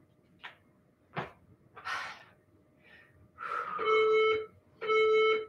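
Electronic workout interval timer beeping its countdown to the next round: two long, even beeps a second apart near the end, with a third just after. Before them come a couple of soft knocks and a breath as a person gets down onto the floor mat.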